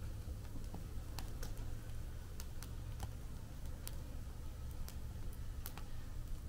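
Wood fire burning in a fire pit, crackling with irregular sharp pops over a low steady rumble.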